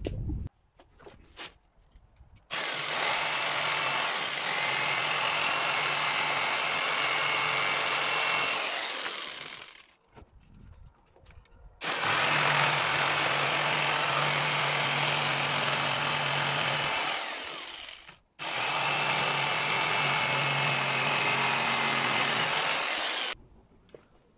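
Corded jigsaw cutting through wooden boards, running in three long stretches with short pauses between them.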